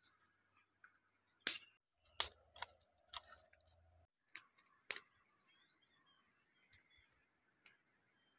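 Dry sticks clacking and snapping as they are handled and laid for a cooking fire: several sharp clicks in the first five seconds, over a steady high hiss, with fainter scattered ticks afterwards.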